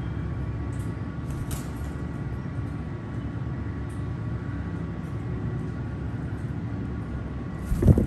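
Steady low background rumble with faint steady tones above it. Near the end comes one loud thump and rustle as a cockatiel flies up against the camera.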